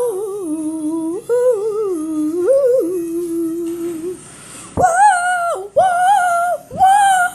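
A single voice humming a wordless tune in held, stepped notes. From about five seconds in it switches to short, higher wordless notes with a wavering pitch, about one a second.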